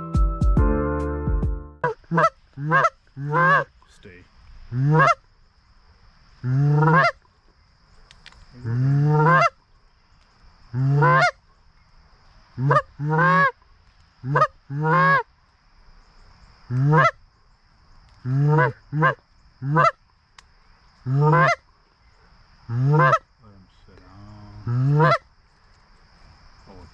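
Loud Canada goose honks, one at a time and roughly eighteen in all, spaced a second or two apart, each breaking sharply upward in pitch. Background music ends about two seconds in.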